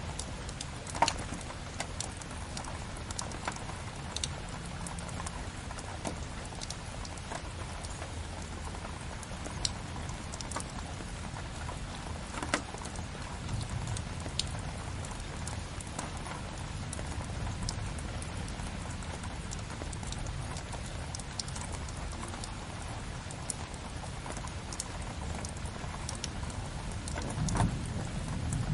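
Steady rain hiss mixed with a crackling fireplace: scattered sharp pops and snaps over a low rumble, with the loudest pops about a second in and near the middle.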